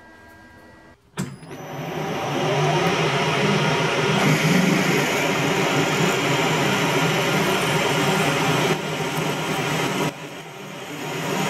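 Victor metal lathe starting up about a second in and running, with a twist drill in the tailstock chuck boring into the end of a 30 mm round bar: the tapping hole for an M10 thread. The level builds over a second or so to a loud, steady machining noise and dips briefly twice near the end.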